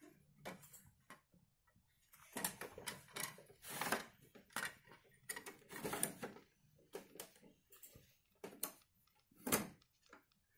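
Faint plastic clicks and short rattles of a Bruder toy garbage truck's side-loading arm and bin being worked by hand, irregular and spaced out, the loudest rattle near the end.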